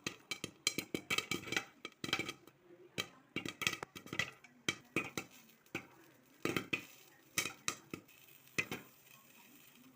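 Act II popcorn kernels popping: sharp, irregular pops, several a second at first, thinning to a few scattered ones near the end as the popping slows.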